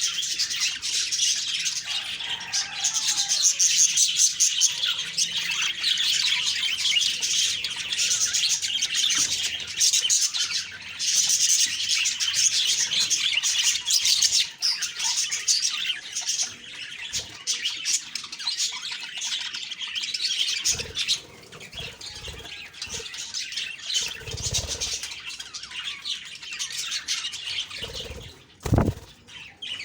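Budgerigars chattering and chirping together, a busy twittering that thins out in the last third. A few low thumps come in the second half, the sharpest one near the end.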